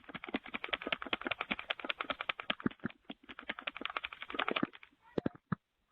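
Doorbell camera's button being jabbed rapidly and repeatedly: a fast run of sharp clicks, about ten a second, that stops almost five seconds in, followed by a few last clicks.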